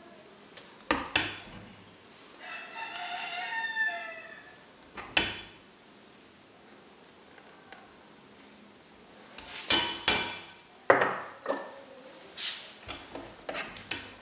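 A metal ladle knocks and clinks against a cooking pot and a ceramic cup while thick sorghum cream is ladled out: a few knocks about a second in, one at about five seconds, and a busier run of clinks in the second half. A rooster crows once, about two and a half seconds in.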